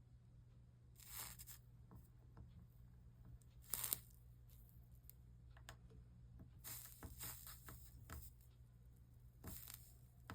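Soldering iron melting 60/40 solder on fluxed copper-foil seams: faint short sizzling hisses, the loudest about four seconds in, with a few light ticks between them and a low steady hum underneath.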